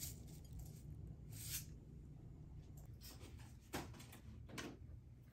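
A few light clicks and knocks of metal chopsticks against a ceramic bowl as udon noodles are picked up, over a low steady hum.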